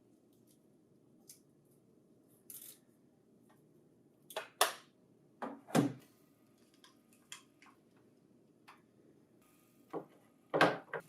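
Scattered clicks, knocks and a short rustle of plastic parts being handled, loudest near the middle and just before the end.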